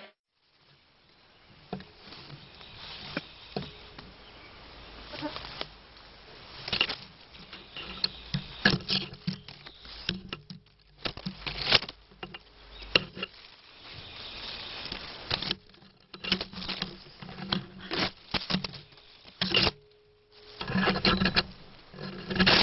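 Leaves rustling and crackling close to the microphone in irregular bursts, with an insect buzzing on and off.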